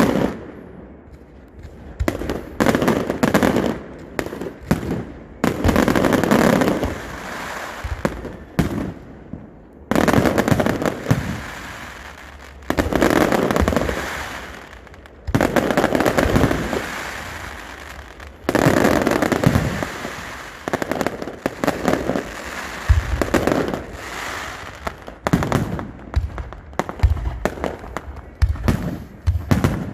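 Fireworks display: aerial shells bursting one after another about every two to three seconds, each bang trailing off in crackles, with a quicker run of sharp cracks near the end.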